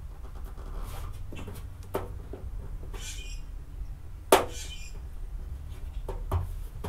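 Light handling sounds of fingers setting a strip of body side molding against a car door, with a few small taps and one sharp click a little over four seconds in, over a steady low hum.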